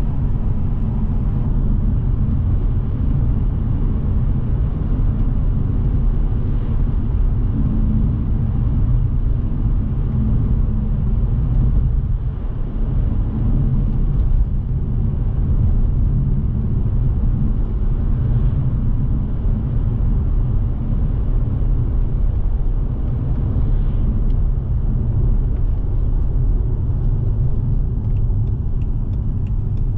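Steady cabin rumble of a 2006 BMW 630i driving along a country road: engine and tyre noise heard from inside the car, strongest in the low range, easing briefly about twelve seconds in. A faint ticking appears near the end.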